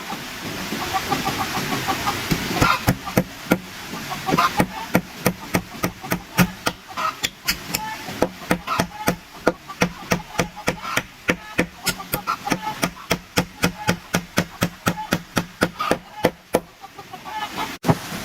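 A tool striking wood in a steady run of sharp knocks, about three to four a second, starting about four seconds in and stopping shortly before the end. Chickens cluck in the background.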